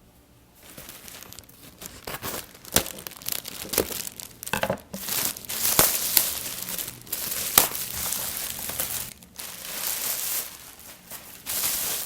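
Packaging crinkling and tearing as a parcel is unwrapped, with several sharp snaps among the rustling.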